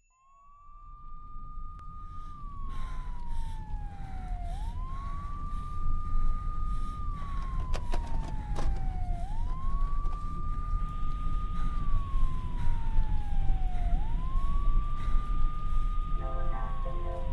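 Police siren wailing: four times, the tone sweeps quickly up, holds, then slides slowly down, over a low rumble that swells. Music comes in near the end.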